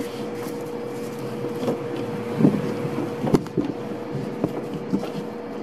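Bread dough being kneaded by hand in a stainless steel bowl: irregular soft thumps and knocks as the dough is pressed and pushed against the metal, the sharpest about halfway through. A steady background hum runs under it.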